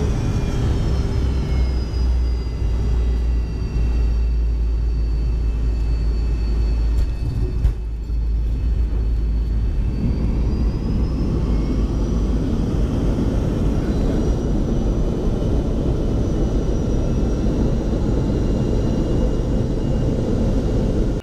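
Jet airliner cabin noise during the landing rollout: a loud, steady rumble with a high engine whine that slides down in pitch and later rises again. About halfway through, the deep rumble eases and a broader rushing noise takes over.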